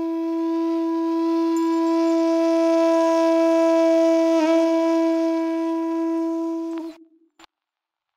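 A single wind-instrument note held steady on one pitch for about seven seconds as part of the performance's music, wavering briefly about four seconds in, then cutting off suddenly. A faint click follows in the silence.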